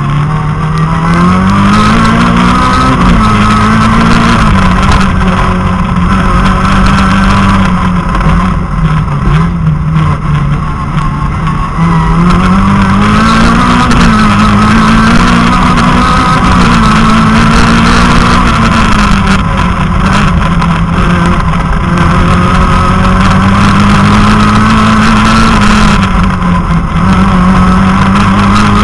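Citroën Saxo rally car's engine driven hard, heard from inside the cabin: its note climbs as the revs rise and drops back at each gear change or lift, over and over through the stretch.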